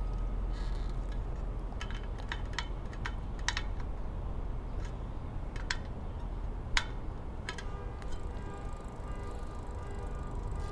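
Scattered light metal clicks and taps while a bicycle wheel is trued with a spoke key, the sharpest about seven seconds in, over a steady low hum.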